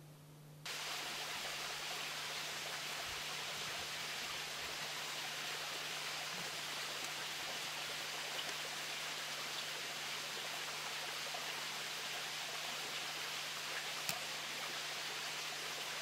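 Steady, even hissing background noise with a faint low hum underneath. It starts abruptly about half a second in, and a single faint click comes near the end. No bird call stands out.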